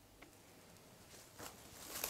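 Near silence, with a faint rustle of plastic cling film being handled over a glass bowl near the end.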